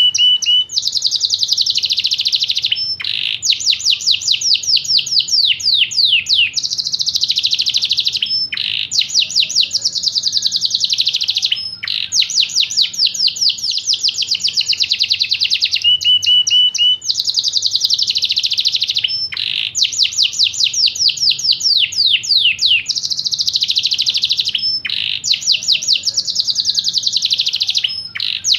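Yorkshire canary singing: long rapid trills and rolls in phrases of two to three seconds, each broken off by a short pause, some phrases ending in slower falling notes.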